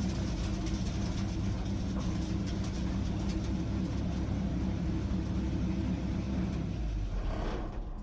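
A truck's engine running steadily under road noise while driving. Near the end the engine note fades and changes as the truck slows.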